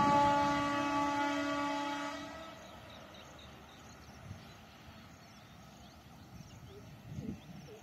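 Indian Railways WAG9 electric locomotive's horn sounding one long, steady blast that cuts off about two seconds in. Afterwards only faint outdoor ambience with light high chirping.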